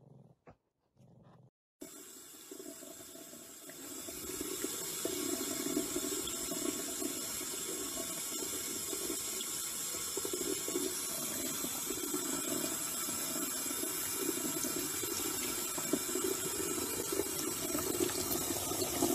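Water running steadily from a tap in a thin stream and splashing onto the counter and into a mug. It starts about two seconds in and grows louder a couple of seconds later.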